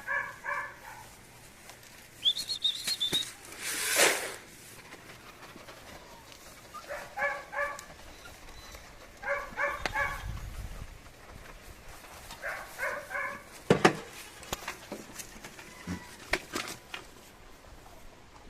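Farmyard animal calls: short runs of four or five quick, evenly spaced pitched notes, repeated four times, with a brief high chirp and a few sharp clicks and knocks between them.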